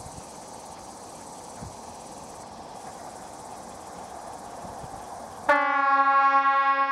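Approaching electric train's horn sounding one loud, steady blast that starts about five and a half seconds in, a warning as it nears. Before it there is only faint steady background hiss with insects.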